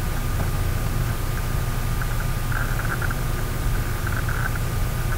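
Steady low hum and hiss of background noise, with a thin steady tone above it and faint flickering patches higher up.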